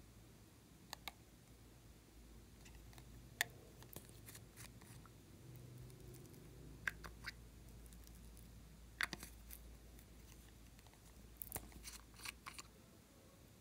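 Scattered light clicks and taps of small plastic makeup bottles and their brush caps being handled and twisted open, some in quick pairs or short clusters, over a quiet low room hum.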